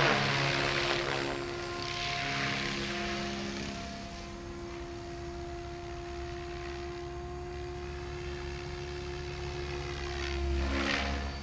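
Electric Goblin 700 RC helicopter in flight: steady rotor noise with a motor whine. It is loudest near the start, fades as the helicopter moves off, and swells again near the end as it comes back closer.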